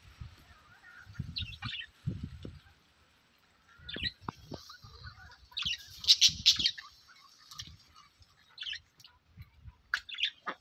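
Budgerigars chirping and chattering in short bursts, busiest about six seconds in, with soft low bumps in between.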